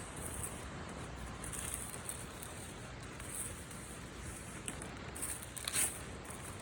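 Faint rustling handling sounds over a steady background hiss, with a short, louder rustle near the end.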